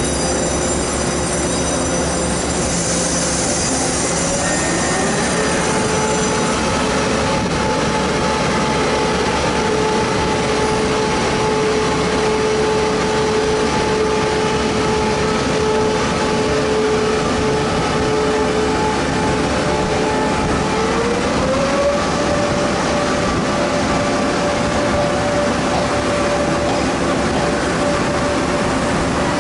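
Taiwan Railway E1000 push-pull electric train moving off, its traction equipment whining in a tone that climbs in two steps as it gathers speed, over a steady rumble of wheels on rail. A cluster of high steady tones sounds through the first several seconds.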